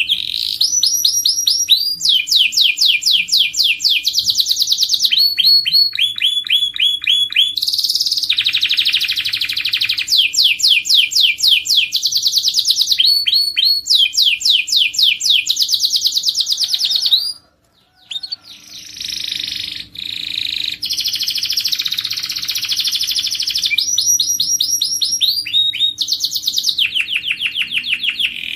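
Domestic canary singing: rapid trills of repeated notes, many sweeping down in pitch, switching from one trill pattern to the next every second or two. The song breaks off for about half a second a little past halfway, then carries on.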